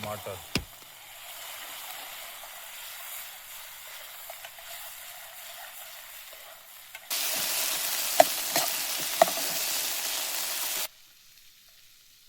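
Onions and tomatoes frying in a pan of oil and ghee, with a steady sizzle. About seven seconds in, the sizzle jumps much louder for a few seconds, with a couple of sharp clicks of a spoon against the pan, then drops off abruptly to faint.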